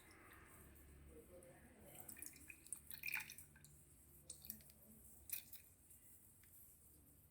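Faint scattered drips and small clicks, busiest in the middle, with a couple of sharper ticks standing out.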